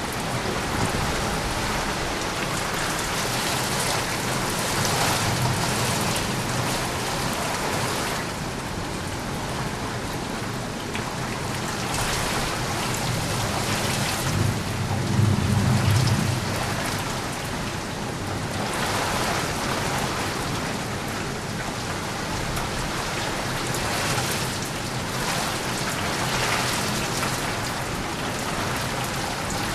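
Steady heavy rain falling, with a low roll of thunder that swells and peaks about halfway through, and a fainter rumble earlier on.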